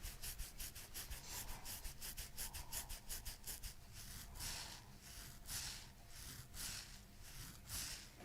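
Hands rubbing in short, quick back-and-forth strokes over the patient's body, about four a second at first, then slower, longer strokes, as the chiropractor works the tender area.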